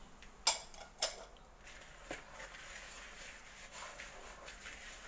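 Two sharp clinks, about half a second apart, as a small glass bowl is put down, followed by a spatula softly scraping and stirring dry oats, oat flour and chocolate chips in a mixing bowl.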